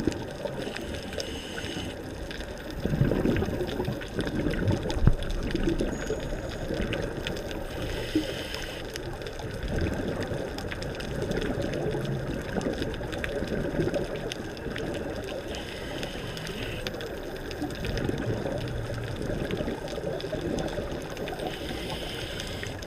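Scuba diver breathing through a regulator underwater: a short hiss of inhaling about every seven seconds, with a bubbling rumble of exhaled air in between.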